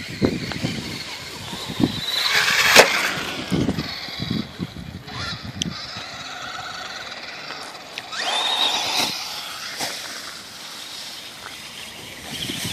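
Stock Traxxas Stampede 4x4 electric RC monster trucks on 2S LiPo batteries driving, their motors whining up in pitch as they accelerate, with tyre and chassis noise; a sharp knock about three seconds in.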